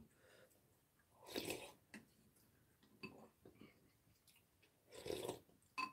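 Faint eating sounds: clam sujebi broth sipped from a soup bowl in two short slurps, about a second in and again near the end, with a few light clicks between.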